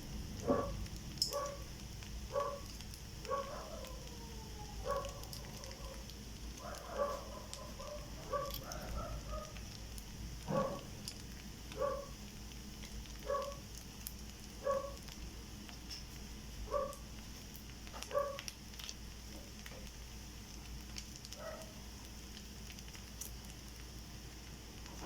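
An animal calling over and over, short calls about once a second, with a few longer gliding calls mixed in.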